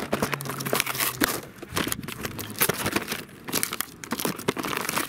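Close, irregular crinkling and tearing of the paper wrapping on a firework battery as it is handled and torn open by hand.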